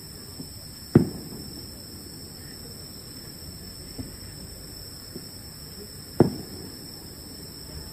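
Distant fireworks shells bursting: two loud booms about five seconds apart, each with a short echo, and a few fainter pops between them. Steady high-pitched tones run underneath.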